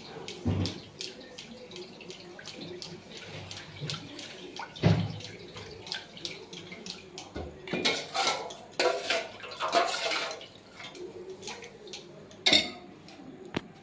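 Milk poured over mango pieces in a stainless-steel mixer jar, splashing most about 8 to 10 seconds in, with a steel spoon and steel bowls clinking throughout and one heavier knock about 5 seconds in.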